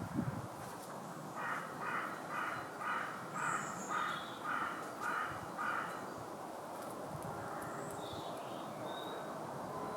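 A bird calling: a series of eight short, harsh calls at an even pace of about two a second, then stopping. A low thump sounds just at the start, over a steady background hiss.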